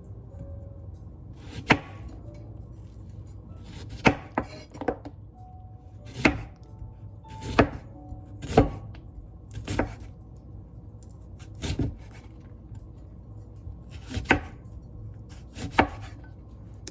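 Kitchen knife chopping on a cutting board: single, unhurried cuts spaced a second or two apart, about a dozen in all.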